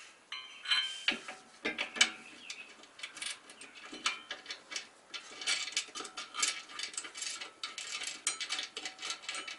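Hand ratchet clicking in quick runs of strokes, mixed with light metal clinks, as a bolt is run in to hold one end of a front lower cross bar under a VW Mk2.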